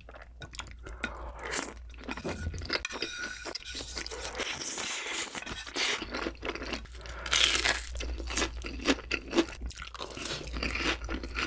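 Close-miked eating sounds: wet chewing and slurping of jjimdak's glass noodles and braised chicken, mixed with crunchy bites. A dense run of smacks and crunches, loudest about seven and a half seconds in.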